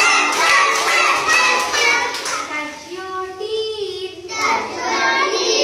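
A group of young children singing a parts-of-the-body action rhyme together in unison, with some hand clapping in the first two seconds or so.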